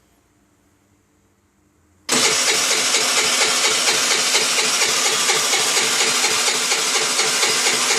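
Baotian Tanco 50cc four-stroke scooter engine starting up abruptly about two seconds in, then running steadily and loudly with a fast, even pulse.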